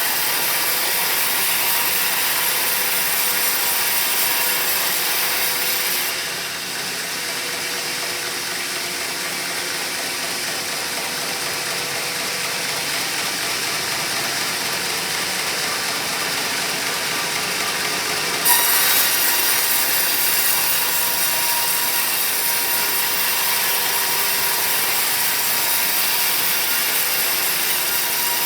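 Sawmill saw running through a teak log, a steady grinding hiss of the blade in the wood. The high part of the hiss drops away about six seconds in and comes back with a sharp click about two-thirds of the way through.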